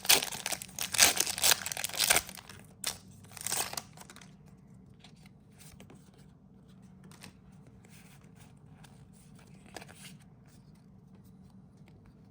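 Foil wrapper of a Pokémon TCG booster pack being torn open and crinkled for about four seconds, then only faint rustling and light ticks of cards being handled.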